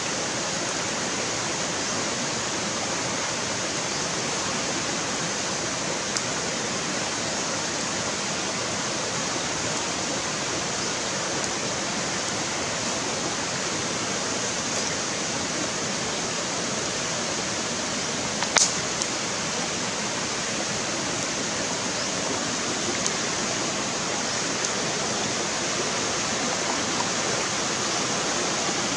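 Shallow rocky stream running steadily, an even rushing wash of water. A single sharp click stands out about two-thirds of the way through, with a few fainter ticks elsewhere.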